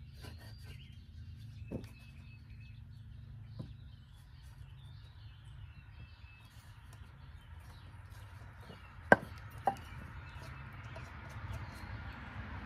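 Two sharp wooden knocks about half a second apart, with a few softer knocks earlier, as pine frame boards are handled and fitted together. Birds chirp faintly over a steady low rumble, and a vehicle's noise rises near the end.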